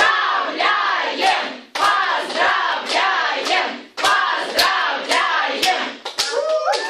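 A group of people chanting together in unison and clapping in time, about two syllables a second, with the voices moving into longer held notes near the end.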